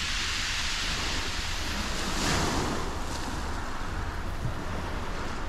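Small waves washing onto a shingle beach, with one wash swelling up a little over two seconds in, and wind rumbling on the microphone.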